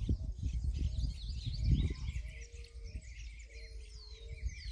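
Several small birds chirping and singing at once, with a low cooing call repeating in short notes from about halfway in, typical of a dove. A low thump comes about two seconds in over a steady low rumble.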